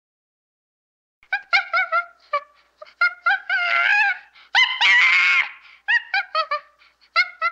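Gibbon calling, starting about a second in: a fast run of short, clear hooting notes, many rising or bending in pitch, with two longer, wavering notes in the middle.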